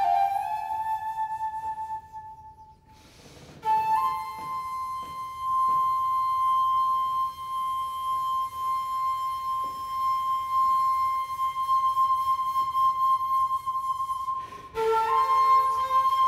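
A flute playing slow, long-held notes: a short phrase stepping upward, a breathy pause about two seconds in, then one high note held for about ten seconds before a new phrase starts near the end.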